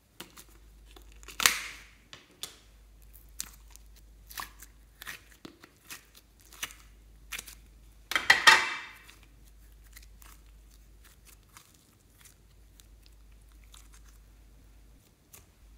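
Soft slime being pulled and squeezed by hand, with many small sticky crackles and pops. Two louder tearing sounds stand out, about a second and a half in and again around eight seconds, as the slime peels and stretches apart.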